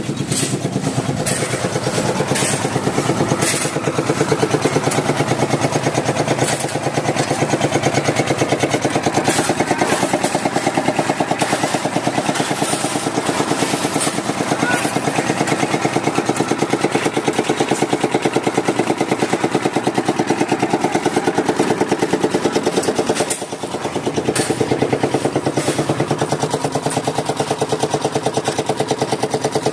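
An engine running steadily at a constant speed on a concrete job, with scattered sharp clicks and knocks over it. The engine dips briefly about three quarters of the way through, then picks up again.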